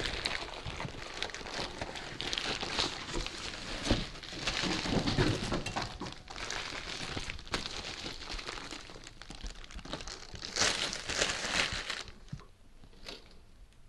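Clear plastic wrapping bag crinkling and rustling as an appliance is lifted out of its box and unwrapped, with a few knocks of handling. It quietens near the end.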